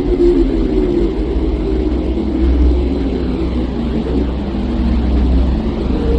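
Steady, deep rumbling drone with a dense hum band above it and a faint, slowly sweeping hiss on top: an ambient space-sound track presented as the sound of the Earth.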